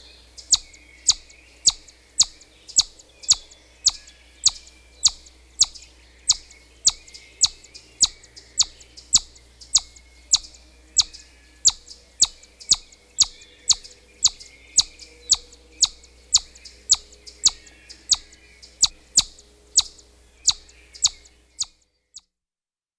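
Squirrel calling: a sharp, high chirp repeated steadily about twice a second, stopping near the end.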